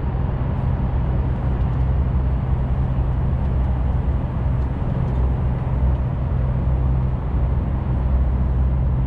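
Steady in-cab drone of a Volvo FH460 LNG semitrailer truck cruising at motorway speed: low engine hum with even tyre and road noise. The trailer's freezer unit is running behind it, described as not that loud.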